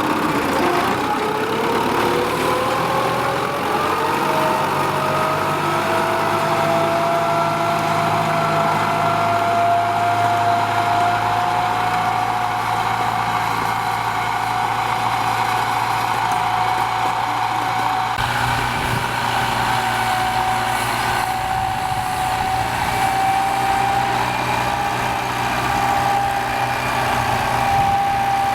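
Kubota M9540 tractor's diesel engine running, its pitch climbing over the first few seconds as it picks up speed, then holding nearly steady. The low rumble grows heavier about two-thirds of the way through.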